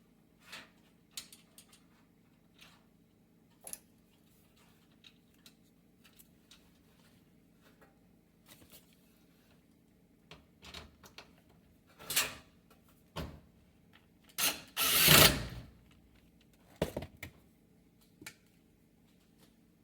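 Scattered clicks and knocks of parts and tools being handled while a gas range's control panel is worked on, with one louder noisy rattle lasting about a second past the middle.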